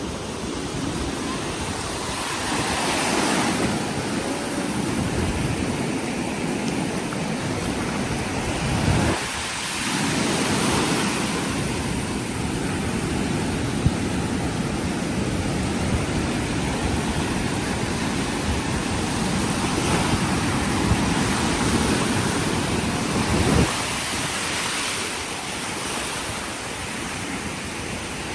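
Rough surf breaking on a sand beach, the wash rising and falling in swells every few seconds, with wind gusting on the microphone.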